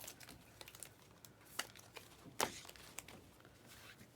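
Trading cards being handled and a foil pack wrapper crinkling, with scattered light clicks and two sharper snaps in the middle.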